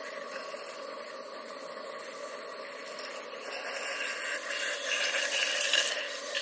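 Steam hissing in the copper steam piping of a model steam engine setup, steady at first, then louder and sputtering from about halfway through as steam escapes at a leaking O-ring joint.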